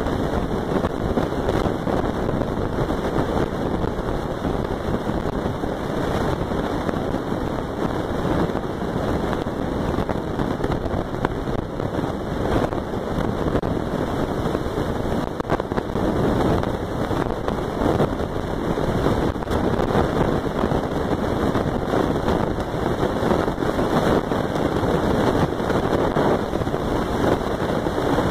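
Steady wind buffeting the phone's microphone, a constant rumbling hiss with no calls or other distinct sounds standing out.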